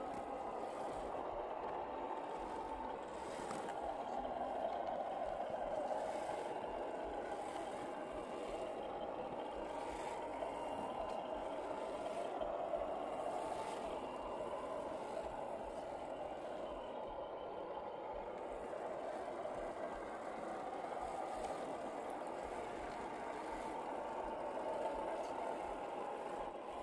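Electric motors and gear trains of 1/10-scale RC crawler trucks whining as they churn through thick mud, the pitch drifting up and down with the throttle, with a few faint clicks.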